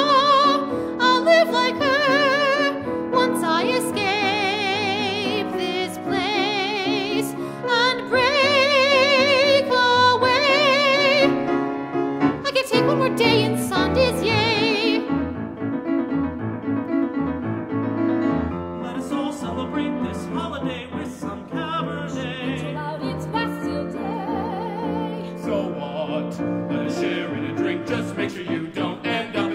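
Stage-musical song: a singer holding long notes with wide vibrato over piano accompaniment. About halfway through the singing gives way to a quieter passage of the accompaniment.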